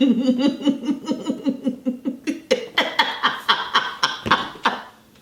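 A person laughing hard in a rapid string of short bursts, about five a second, changing to looser, higher laughs about halfway through.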